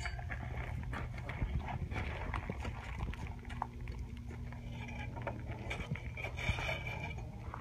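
Steady low roar of a propane burner firing a metal-melting furnace, with scattered clinks and knocks of steel lifting tongs against the furnace rim and crucible.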